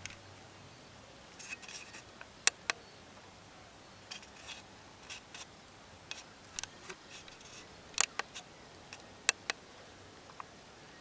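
Scattered sharp clicks and a few short rustles over a faint hiss.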